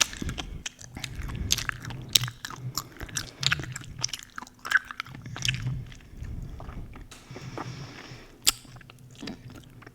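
Close-miked gum chewing: irregular wet smacks and clicks of the mouth working the gum, with one sharper snap about two-thirds of the way through.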